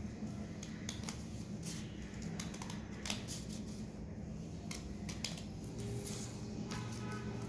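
Scissors cutting through paper: a run of irregular snips.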